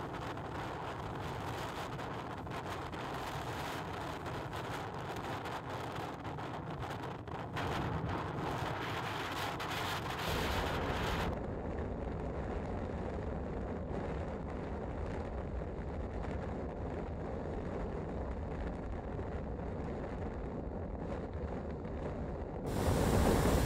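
Gale-force wind, force 10 gusting to 11, buffeting the camera microphone as a steady rough rumble. About ten seconds in it turns duller and deeper, the hiss dropping away while the low rumble grows.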